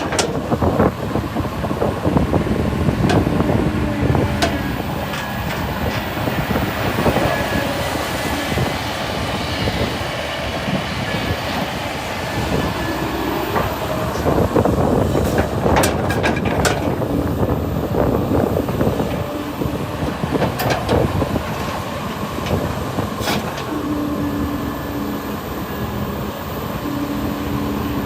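Heavy excavator diesel engines running steadily, with scattered knocks and clanks of metal throughout.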